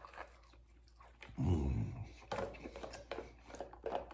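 Eating sounds: a man's low closed-mouth "mmm" with his mouth full about one and a half seconds in, then chewing and small clicks of a fork against a plastic takeout container.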